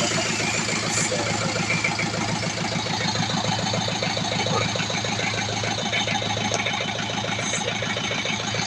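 Isuzu Panther diesel engine idling steadily with an even rhythm, just after starting.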